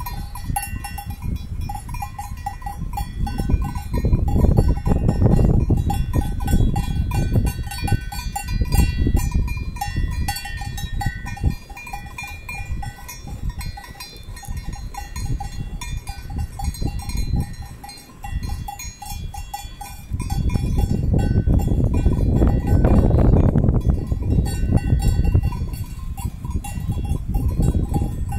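Bells on a grazing flock of sheep jingle and clank continuously in an uneven jangle of many small strikes. Bouts of loud, low rumbling noise come in partway through and again near the end.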